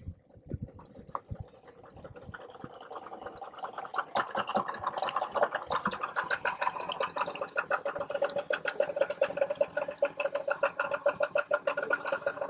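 Outboard motor on an inflatable dinghy running at low speed with a gargling, pulsing exhaust note; it grows louder from about two seconds in as the boat comes closer.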